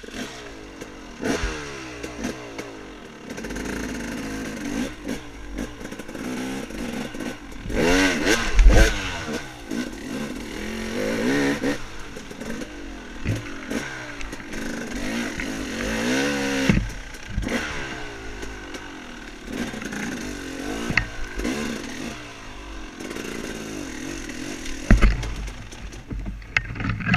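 Dirt bike engine revving up and down as it is ridden over rough trail, the throttle opened and closed again and again. Heavy thumps stand out, the loudest about eight seconds in and another near the end.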